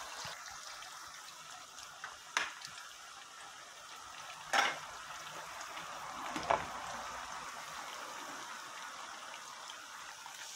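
Plantain slices and an onion-and-tomato sauce frying in hot oil, a steady sizzle and bubbling. Three sharp clicks break it, about two and a half, four and a half and six and a half seconds in; the middle one is the loudest.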